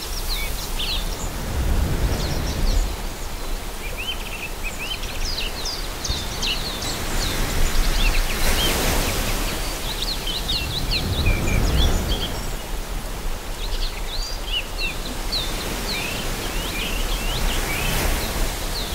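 Several songbirds singing and chirping in quick, overlapping phrases over a steady rushing background noise that swells briefly about halfway through.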